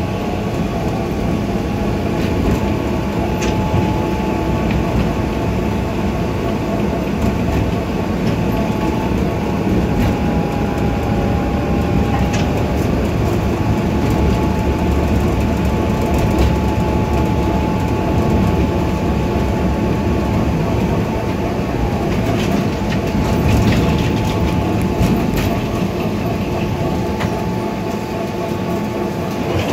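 Tram running along its track, heard from inside the car: a steady rumble of wheels on rails with a constant high whine over it, and a few light clicks.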